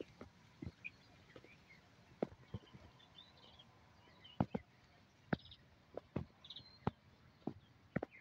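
Birds chirping and trilling faintly in open countryside, over irregular sharp knocks about once a second.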